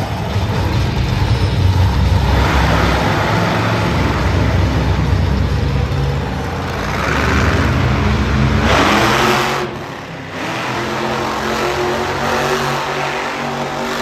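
Monster truck engine revving hard under throttle. It rises in pitch around nine seconds in, drops off briefly about a second later, then picks up again.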